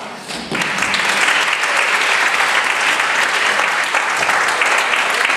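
Audience applauding: a dense, steady patter of many hands clapping that breaks out about half a second in, just after a song ends.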